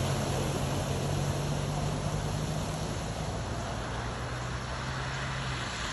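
A motor running steadily under a noisy hiss, its low hum dropping slightly in pitch and fading near the end.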